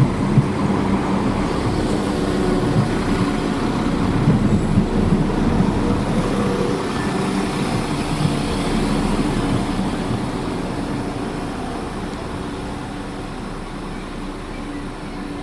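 West Midlands Railway Class 172 Turbostar diesel multiple unit pulling away along the platform, its underfloor diesel engines running with a steady hum and a few knocks from the wheels on the track. The sound fades gradually over the last few seconds as the train draws away.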